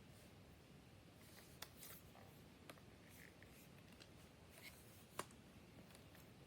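Near silence: room tone with a few faint clicks and a light rustle, the sharpest click about five seconds in.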